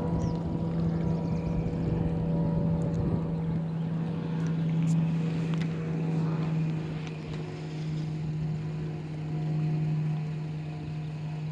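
Pickup truck engine idling: a steady hum that sags slightly in pitch about two-thirds of the way through, then comes back up. Light clicks of fishing tackle being handled in the first half.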